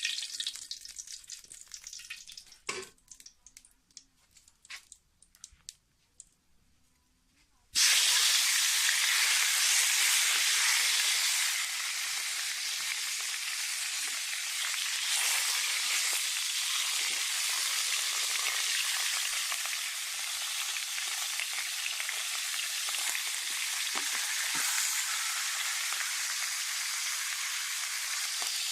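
Duck pieces frying in hot oil in a pan to brown them. For the first several seconds a faint, fading sizzle is broken by a few clicks. About eight seconds in, a loud, steady sizzle starts abruptly and continues.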